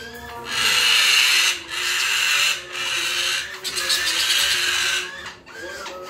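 Sun conures giving a series of four harsh, raspy screeches of about a second each, with short gaps between them.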